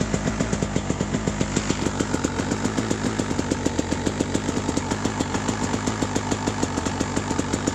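KTM 300 XC-W's single-cylinder two-stroke engine idling steadily with an even, rapid beat, just after a cold start on choke in freezing weather.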